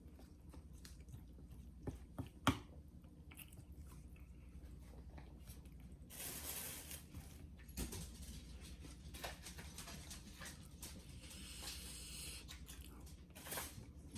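Close-miked chewing of food with wet mouth sounds, including a few sharp smacks about two seconds in, the loudest of them just after the second of these. Brief hissy rustles come twice later on.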